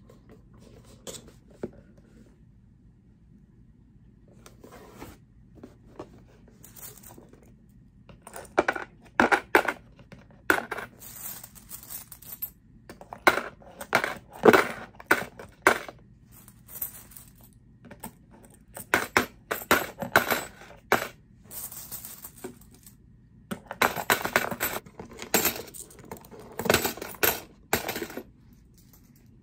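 Coins dropped one after another through the slot of a cardboard coin bank, each clinking onto the coins already inside. The first several seconds hold only faint handling; after that come quick clusters of clinks.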